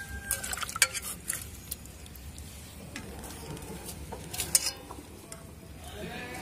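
Wet strips of chopped banana stem being handled in a stainless steel bowl: a soft rustle with a few sharp clicks and knocks against the metal.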